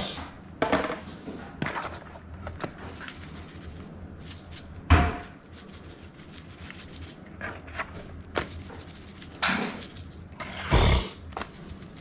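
Hands working raw crappie fillets in a bowl while adobo seasoning is shaken over them from a shaker bottle: scattered short rustles and knocks, the loudest a sharp knock about five seconds in.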